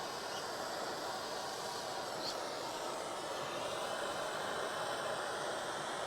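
Steady hiss of a gas torch flame, held on the heater core's tank to melt the old solder out.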